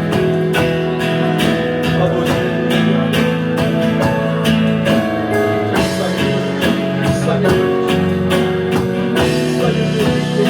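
Worship band music: guitar with a drum kit keeping a steady beat.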